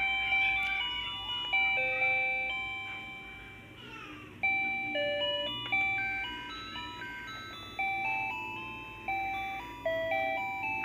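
A children's projector drawing table toy playing its built-in electronic melody: a simple tune of plain beeping notes, each starting sharply and fading. There is a short lull a few seconds in before the tune picks up again.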